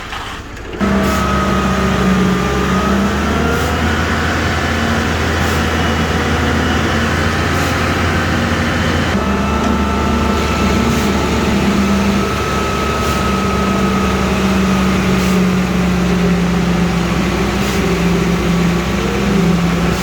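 Heavy road-construction machinery's diesel engine running steadily, with a steady whine over the low hum and an abrupt change about nine seconds in.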